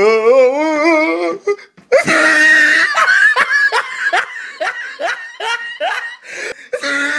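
Loud hearty laughter: a wavering, drawn-out laugh for about a second, then, after a brief break, a long run of laughs at about two a second.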